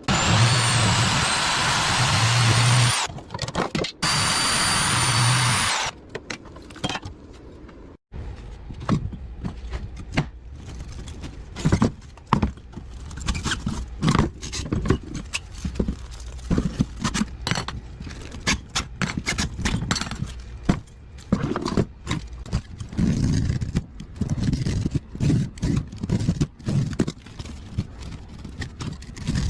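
A power tool cutting into an air-conditioner radiator for about six seconds, with a high steady whine and two brief stops, then many irregular metal knocks, clanks and scrapes as the radiator is worked apart by hand.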